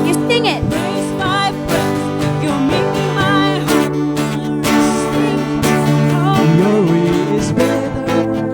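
Live worship band music: strummed acoustic guitar over sustained chords, with a wavering melody line above.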